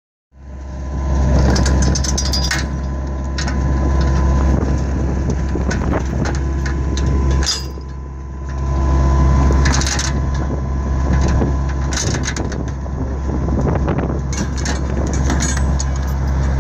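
An engine running steadily at idle, with scattered metallic clicks and rattles over it. The engine sound drops briefly about halfway through.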